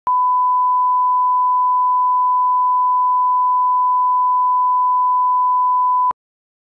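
Broadcast line-up test tone, a single steady pure pitch at 1 kHz played with colour bars. It holds unchanged for about six seconds and cuts off suddenly near the end.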